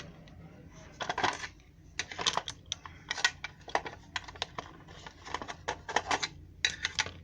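Small hand tools from a phone repair set, screwdrivers and tweezers, being handled and picked over: a string of irregular light clicks and clacks.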